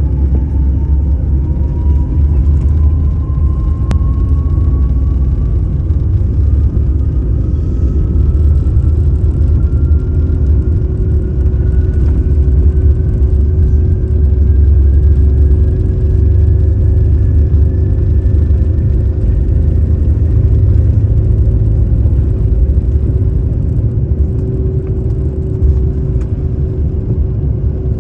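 A jet airliner's takeoff roll heard inside the cabin: a loud, steady low rumble of the engines at takeoff power and the wheels on the runway, with a whine that climbs steadily in pitch over the first twenty seconds as the plane gathers speed.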